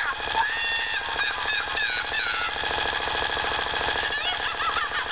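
Battery-powered plush Crazy Cat toy running: its motor makes a rapid, steady rattle as the toy jiggles on the table, while its sound chip plays high electronic cries that glide up and down, once early and again near the end.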